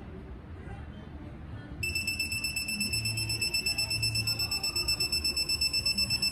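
Digital torque wrench beeping: a high-pitched electronic beep that starts about two seconds in and pulses rapidly, several times a second, as the bolt is pulled up toward the wrench's set torque.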